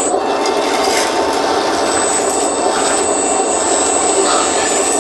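Electric hydraulic pump and motors of a 1:14-scale RC skid steer loader running steadily, with a high thin whine coming in about two seconds in.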